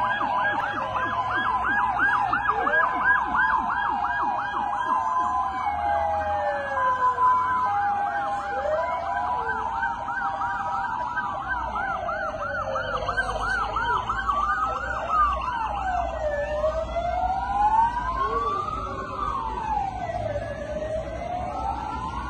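Several emergency-vehicle sirens sounding at once as the vehicles pass: a fast warbling yelp and alternating two-note tones at first, giving way about halfway through to slow wails that rise and fall every couple of seconds.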